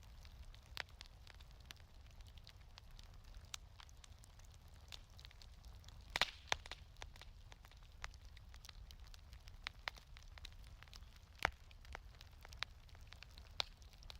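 Wood fire crackling in a fireplace: irregular sharp pops and snaps over a low, steady rumble. There is a quick cluster of louder pops a little after six seconds and one sharp crack at about eleven and a half seconds.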